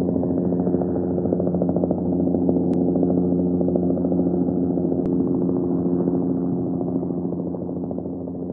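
Helicopter rotor blades chopping steadily over the engine's steady drone, slowly fading toward the end.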